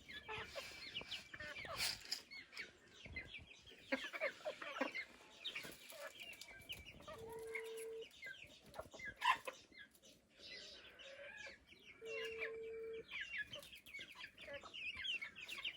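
A flock of chickens clucking and calling, many short quick calls overlapping throughout, with a steady low note held for about a second twice, around the middle and again past two-thirds of the way through.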